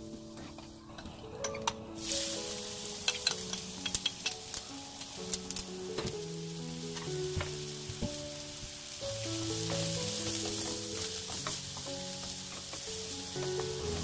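Sliced shiitake mushrooms sizzling as they stir-fry in oil in a nonstick frying pan, starting about two seconds in, with light clicks as chopsticks turn them. Soft background music plays underneath.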